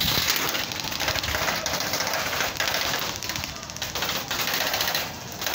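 Airsoft guns firing: rapid clicking and ticking in bursts over a steady hiss, with a few sharper cracks about once a second.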